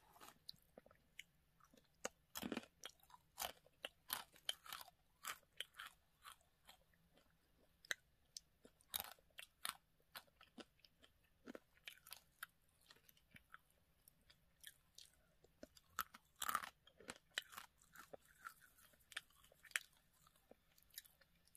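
A person crunching and chewing dry, uncooked instant ramen noodles dusted with seasoning powder. The crunches are sharp and irregular, coming in quick clusters with short pauses between bites.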